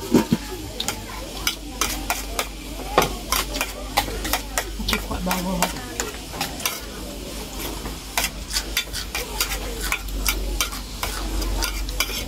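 People eating a meal: spoons clinking and scraping against steel bowls and plates, with eating noises, in quick irregular sharp clicks.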